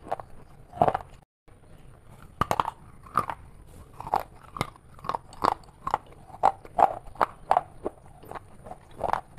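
Close-up crunching of crisp fried snack chips being bitten and chewed, a sharp crunch about twice a second. The sound drops out briefly just after a second in.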